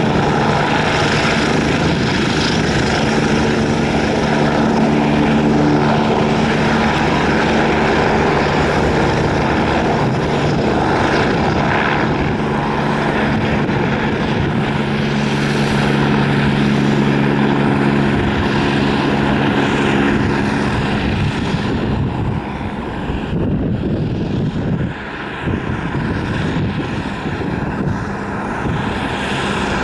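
Eurocopter-Kawasaki EC-145 (BK-117C-2) helicopter's twin turbines and rotors running, a steady drone with several held low tones. About two-thirds of the way through the low tones fade, leaving a broader, slightly quieter rushing noise.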